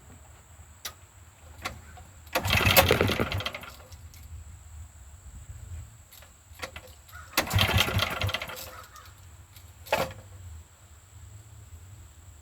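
Two pulls on a portable generator's recoil starter, each spinning the small engine over for about a second and a half with the choke held, without it catching: the engine won't start after months of sitting. A sharp knock follows a little later.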